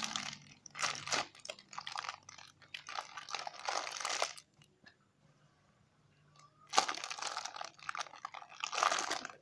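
Plastic packaging crinkling and rustling in irregular spells as a foam squishy toy is handled, with a pause of about two seconds midway.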